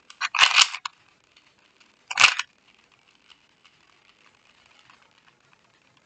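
2x2 Rubik's cube being turned by hand: two quick bursts of clicking plastic layer turns, the first about half a second in and the second at about two seconds, with faint ticks of smaller turns in between.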